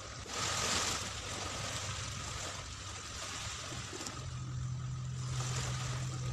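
Small waves washing on the shore, swelling about half a second in. About four seconds in, a steady low engine hum starts and holds, typical of a boat motor out on the water.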